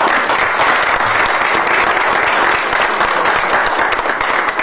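An audience applauding, a steady clapping of many hands.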